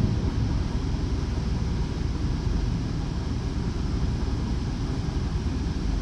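Jeep Wrangler engine idling with a steady low rumble, running again now that the blown fuse that caused its crank-no-start has been replaced.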